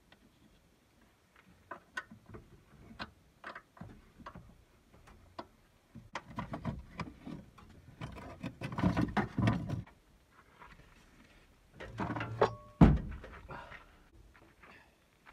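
A spanner clicking and scraping on a car battery's terminal bolts and hold-down clamp. A denser run of metallic rattling and clunking follows as the battery is worked loose and lifted out, with one loud knock near the end.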